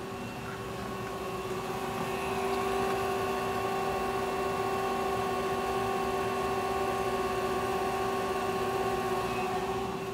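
Citizen L32 CNC Swiss-type lathe running: a steady machine whine made of several fixed tones over a hum. It grows a little louder about two seconds in and eases off near the end.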